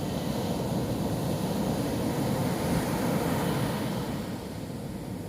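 Ocean waves breaking on a beach: steady low surf noise that swells about three seconds in and eases near the end.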